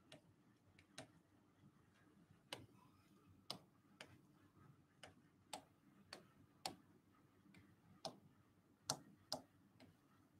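Faint, irregular clicks of a pen tapping on an interactive display board while small figures are drawn, about a dozen over the span, with near silence between them.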